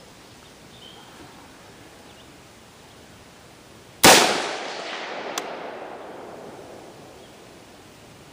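A single rifle shot from a 5.56 AR-15 carbine with a 16-inch mid-length barrel, about four seconds in, its report rolling away in a long echo over about three seconds. A sharp short tick follows about a second after the shot.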